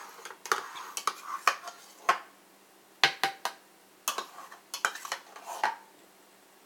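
A spoon tapping and scraping to get the last of the plain yogurt out into a plastic blender jar: about ten sharp, irregular clicks and knocks, stopping near the end.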